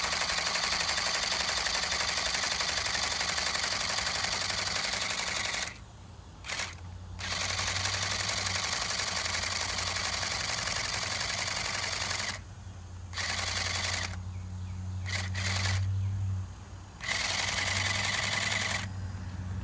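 Battery-powered water gun spraying water in several long bursts of a few seconds each, with short pauses between them and a low hum from its motor.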